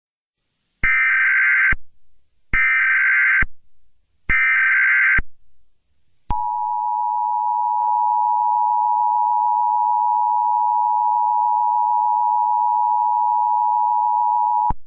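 Emergency Alert System tones: three short bursts of warbling SAME header data, each under a second, then the two-tone attention signal, a steady dual tone held for about eight seconds that cuts off suddenly. Together they announce a Civil Emergency Message.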